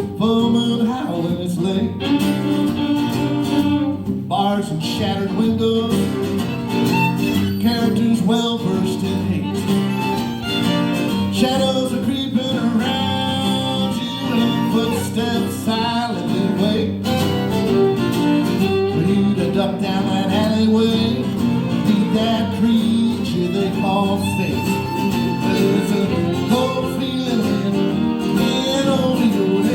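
Acoustic string-band music: a fiddle and a guitar playing an instrumental passage of a country-bluegrass song, live.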